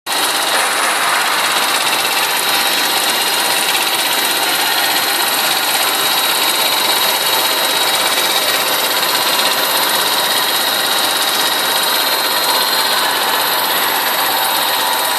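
Sludge dewatering machine running: a steady mechanical noise with a thin high whine in it, holding even with no change.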